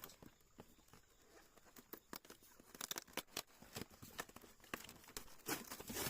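Plastic bag crinkling and rustling as it is handled, in irregular crackles that thicken about three seconds in and again near the end.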